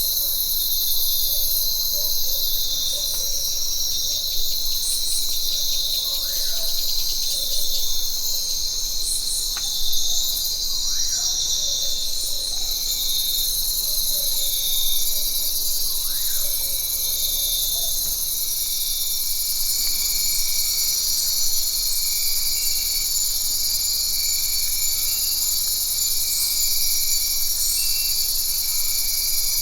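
Jungle ambience: a dense, steady, high-pitched chorus of insects, with a few faint short calls in the first half and a pulsing insect trill joining about twenty seconds in.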